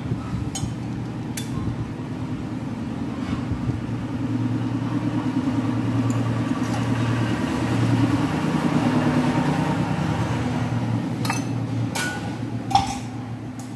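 Steady low rumble of a portable stove burner heating a pot of boiling corn. A few sharp metallic clinks of steel tongs against the pot come near the end.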